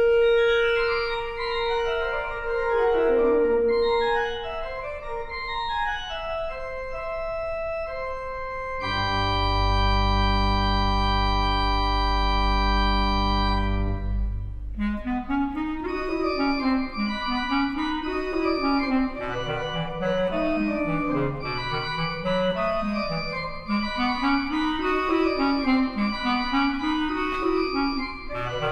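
Organ and clarinet playing together. A clarinet-like held note and melodic lines sound over organ chords; about nine seconds in, the organ holds a full chord with a deep pedal bass for about five seconds. It then plays fast rising-and-falling arpeggios in its lower register under sustained chords.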